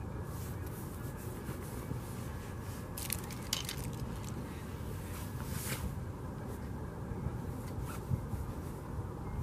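Steady low outdoor rumble with short scraping and crunching sounds a few seconds in: winter clothing rustling and boots scraping on icy, snow-dusted concrete as a person kneels down.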